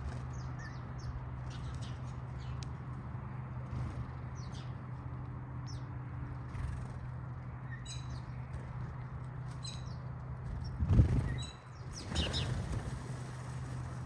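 House sparrows chirping in short, scattered calls while feeding. About eleven seconds in there is a loud, sudden flurry of wingbeats as the small birds take off, with a smaller flurry just after.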